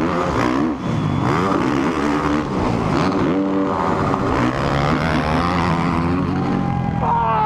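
Single-cylinder 450 four-stroke motocross bike at full throttle, its pitch climbing and dropping repeatedly as it shifts up through the gears, heard from the rider's helmet with wind noise over the microphone.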